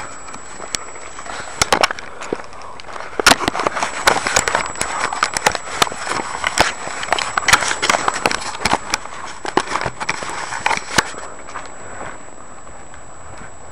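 Footsteps crunching on a dirt and gravel trail, with clothing and gear rustling, in an irregular patter of sharp crunches. They stop about eleven seconds in, leaving a steady hiss.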